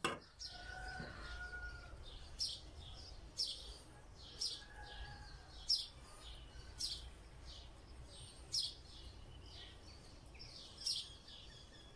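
A small bird chirping: short, high single chirps repeating about once a second over quiet background noise.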